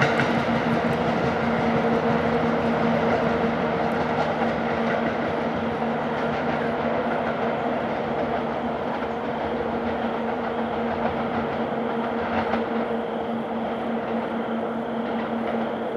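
NJ Transit commuter train hauled by an ALP-45DP locomotive, moving through the station with a steady hum over rumbling wheel-and-rail noise and a few faint clicks, gradually growing quieter.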